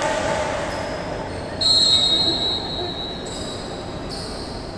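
Volleyball referee's whistle blown once, a long high shrill tone of about a second and a half starting near the middle, the signal to serve.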